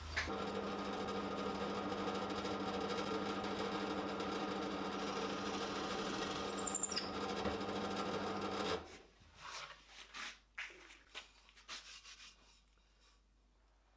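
Bench drill press motor running steadily while the bit bores into a wooden board; it stops about nine seconds in, followed by a few faint handling knocks.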